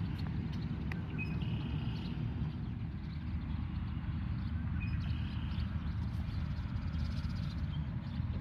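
Park ambience: a steady low rumble, with short faint bird calls about a second and a half in and again about five seconds in.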